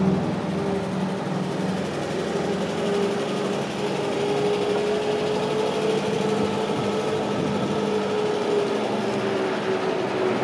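1951 Chevrolet 3100 pickup's rebuilt 235 straight-six engine running steadily as the truck drives slowly past at parking-lot speed.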